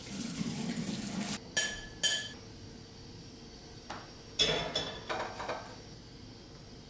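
Pots and pans clattering in a kitchen: a short hiss, two sharp ringing metallic clinks, then a louder clank and a few quick knocks as a frying pan is handled on the stove.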